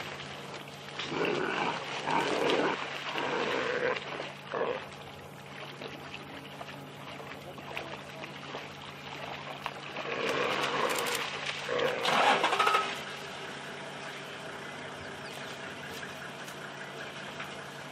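Animal cries during an African wild dog attack on an antelope in shallow water, in two loud bouts, the first a few seconds long near the start and the second about ten to thirteen seconds in. A steady low hum runs underneath.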